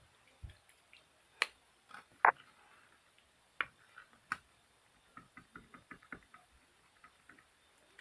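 Pencil case and stationery being handled: scattered sharp plastic clicks and taps, two louder ones within the first few seconds, then a quick run of light clicks about five seconds in.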